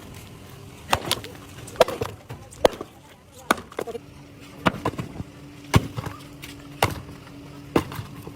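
A series of sharp knocks, about one a second, with a faint steady hum under them from about halfway through.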